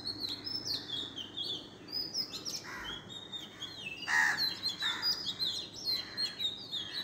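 Several songbirds chirping and twittering in quick, overlapping calls, with a few louder, harsher calls lower in pitch about three, four and five seconds in, the one at four seconds the loudest, over a faint steady background hum.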